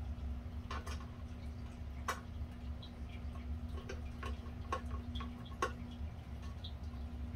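Scattered light clicks and taps from hands and a screwdriver working on a ceiling fan's housing while its screws are being undone, with about six at irregular times over a steady low hum.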